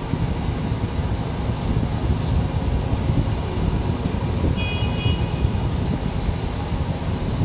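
Steady low rumble of diesel construction machinery engines running, with a brief high beep about halfway through.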